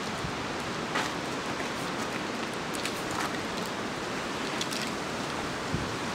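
Steady rustling hiss of wind through dry autumn leaves, with a few faint ticks.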